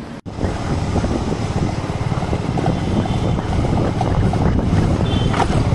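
Motorcycle riding along a street, its engine running with a fast low pulse under wind buffeting the microphone. It cuts in suddenly just after a brief gap near the start.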